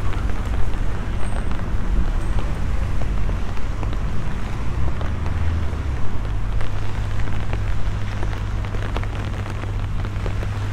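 Rain falling on a wet city street, a steady hiss of many small drops pattering on the paving, over a steady low rumble.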